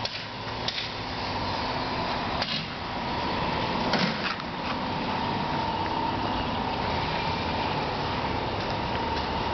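Steady mechanical hum with a thin high whine, growing louder about three seconds in, with a few sharp knocks in the first half.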